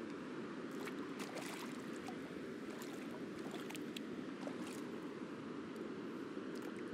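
Steady rush of distant surf, with scattered footsteps splashing and scraping across shallow tide pools on a wet rock reef flat.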